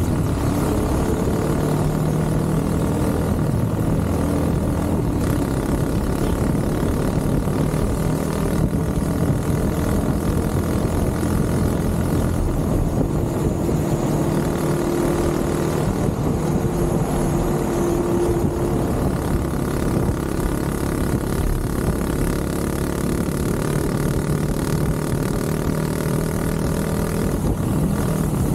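Motorcycle engine running while riding through traffic, its pitch shifting gently up and down with throttle and speed, over a steady low rumble.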